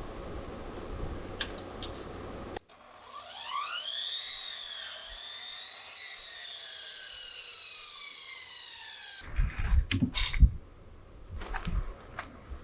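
Cordless power tool motor whining, rising in pitch as it spins up and then winding down slowly over several seconds, followed by a run of sharp knocks and clatters.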